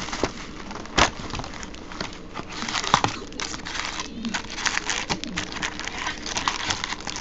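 A Stadium Club baseball card box being opened and its packs handled: crinkling and crackling of wrapper and cardboard, with sharp snaps about one and three seconds in.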